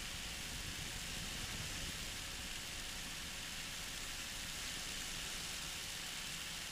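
Steady, even hiss of a flexwing microlight trike in flight: wind rush and its engine running at about 4,500 RPM, unchanging throughout.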